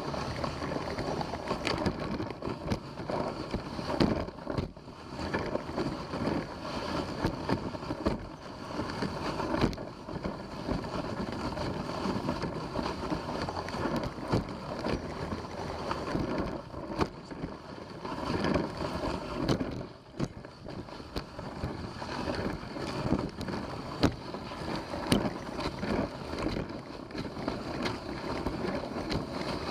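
A dog team's sled or rig running along a trail: steady noise of its travel over the trail mixed with wind on the microphone, with occasional short knocks and clicks.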